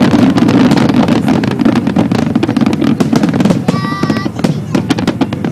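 Fireworks bursting and crackling in quick succession, many sharp cracks over a steady low rumble, with a brief high held tone about four seconds in.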